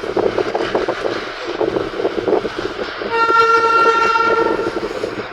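Darjeeling Himalayan Railway toy train clattering along, then sounding one long, steady horn blast about three seconds in that lasts nearly two seconds.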